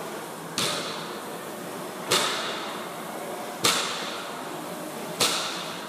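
Barbell loaded with 90 kg of rubber bumper plates set down on the gym floor at the bottom of each deadlift rep: four thuds with a brief ring, about one every second and a half.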